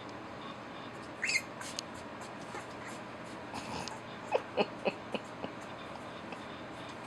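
Rottweiler puppies, 11 days old, squeaking and whimpering: a short rising squeak about a second in, then a quick run of four or five short squeaks a little past the middle.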